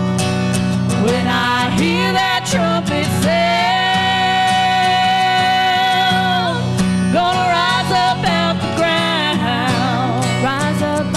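A woman singing a gospel song over a strummed acoustic guitar. Her voice slides through runs, holds one long note in the middle, then wavers through more runs near the end.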